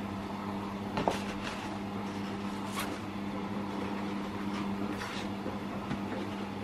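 Sheets of watercolour paper being lifted and shuffled by hand: a few short rustles and a sharp knock about a second in, over a steady low electrical hum.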